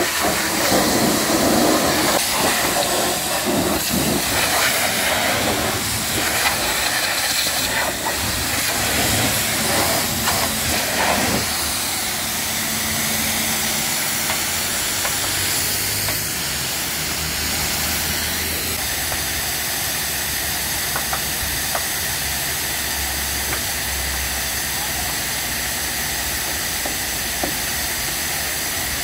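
High-pressure washer spraying water: a loud, steady hiss of spray. For the first dozen seconds it is louder and more uneven, as the jet strikes surfaces; it then settles into a steadier hiss with a low hum underneath.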